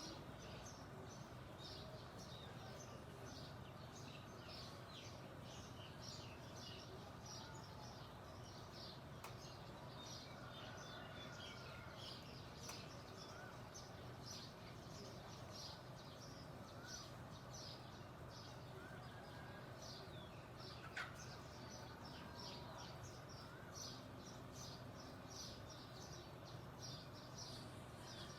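Songbirds chirping: a dense run of short, high chirps repeating without a break, over a faint steady background hum. One sharp click about two-thirds of the way in.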